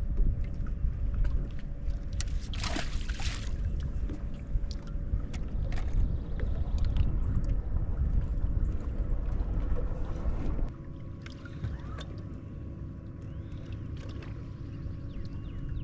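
Wind buffeting the microphone on a bass boat's deck, with water lapping against the hull and a faint steady hum underneath. A brief rushing noise comes about three seconds in, and the low rumble drops away abruptly about ten seconds in.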